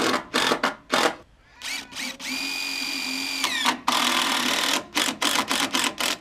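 Handheld power drill run in short trigger bursts, with one longer steady run in the middle that spins up and winds down as the trigger is let go, fastening hardware on a new wooden board of a silage feeder.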